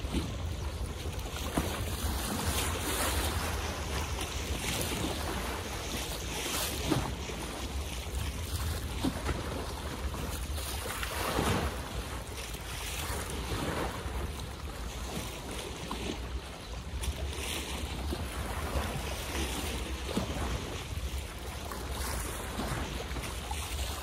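Water lapping and splashing in small irregular splashes, over a steady wash of water, with wind rumbling on the microphone.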